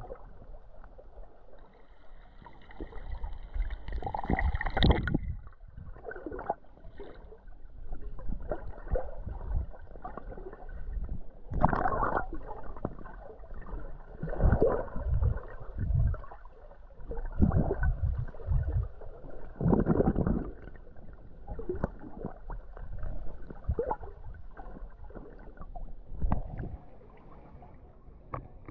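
Water sloshing and gurgling in irregular surges, one every second or two.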